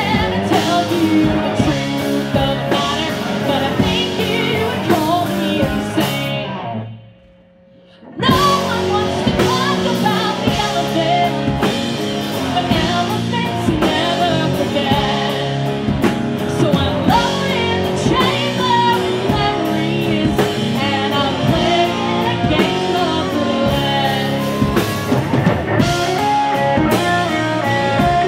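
Live band music: a female lead singer over two electric guitars, electric bass, keyboard and drum kit. About six seconds in, the band stops dead for nearly two seconds, leaving only a faint held note, then comes back in at full volume.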